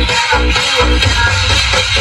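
Electronic dance music with a heavy bass beat, about two beats a second, played loud through a newly installed car-audio speaker box with a subwoofer, tweeter and horn driver.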